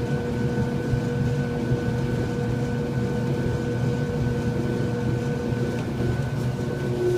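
Kenmore clothes dryer running with a steady motor hum and low rumble, its pitch shifting slightly near the end.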